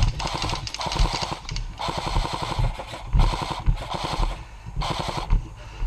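Airsoft guns firing in full-auto bursts: several quick rattling strings of shots, each under a second long.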